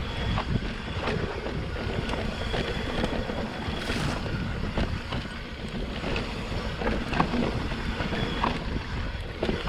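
Electric mountain bike riding down a rough dirt trail: wind buffeting the microphone over steady tyre noise, with scattered rattles and knocks from the bike over bumps.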